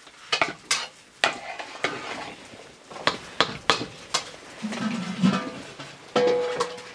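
A metal ladle stirring in a metal cooking pot, clinking and scraping against it in a string of sharp, irregular knocks.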